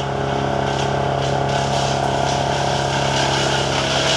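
Wood chipper's engine running steadily, an even drone that holds the same pitch throughout.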